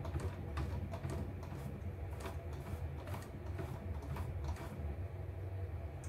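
Light, irregular clicks and ticks, about three a second, from small parts being handled inside a stripped-down E900 computerised embroidery machine, over a steady low hum; the clicking stops near the end.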